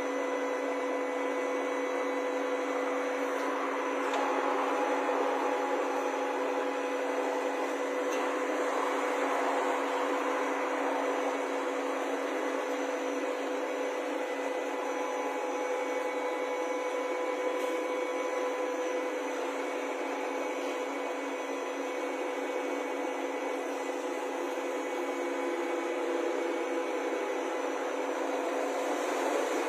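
A Mori Seiki TL-40A CNC lathe running: a steady machine drone with a constant hum of several even tones, swelling slightly around four to ten seconds in.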